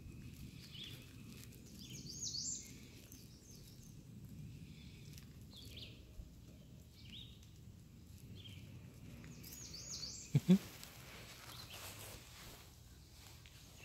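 Faint bird chirps over quiet outdoor background noise, a little louder about two seconds in, with two short soft bumps near the end.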